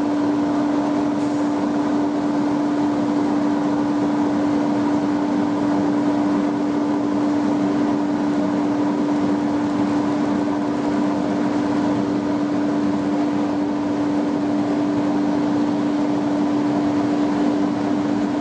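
Fiber-opening and pillow-filling machinery running steadily, a constant mechanical hum with one strong steady tone.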